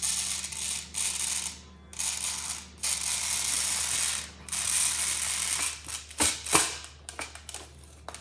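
Plastic fidget toys worked by hand, giving runs of fast ratcheting clicks in spells of about a second each with short pauses between. A few separate louder clicks come near the end.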